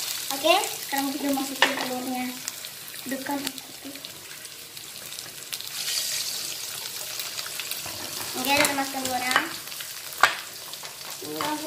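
Sausage slices and onion sizzling in a hot aluminium wok, stirred and scraped with a wooden spatula, with eggs dropped in partway. A few short squeaky gliding tones and sharp taps sound over the steady sizzle.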